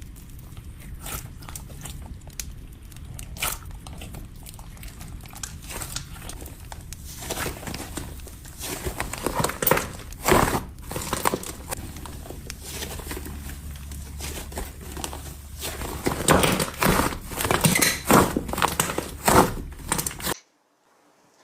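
Slime being squeezed, poked and stretched by hand: irregular sticky pops and crackles, thin at first and much busier in the second half, stopping abruptly near the end.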